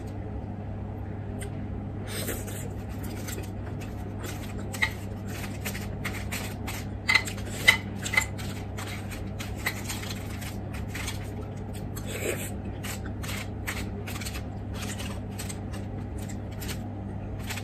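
Metal spoon scraping and picking at food inside an aluminium-foil packet, with irregular crinkles and clicks of the foil and a few louder scrapes around the middle.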